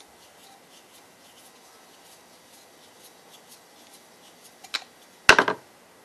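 Faint small clicks and scraping of a screwdriver backing a screw out of a Honda Harmony 215 lawn mower carburetor, then a sharp click and a short clatter of a hard object on the work tray about five seconds in.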